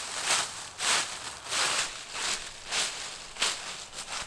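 Footsteps through dry forest leaf litter, a crunching rustle at walking pace, about one step every half second or so.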